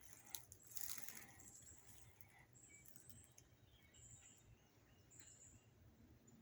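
Near silence outdoors: faint, short, high chirps about once every second or so, with a few soft clicks in the first second.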